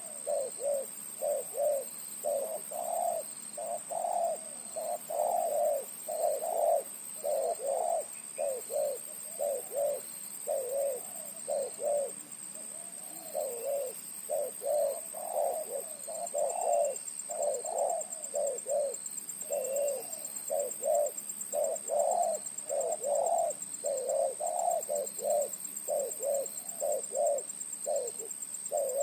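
Spotted dove (terkukur) with a deep, big voice cooing on and on in a rapid series of short low notes, about two a second, with a brief pause about twelve seconds in. A faint steady high whine runs underneath.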